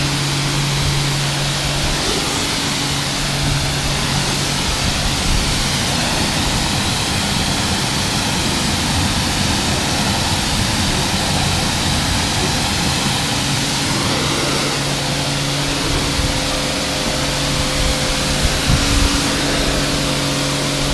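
Kärcher K4 pressure washer running, its pump humming steadily under the hiss of the water jet spraying onto car bodywork and a wheel. The hum is strongest at the start and near the end.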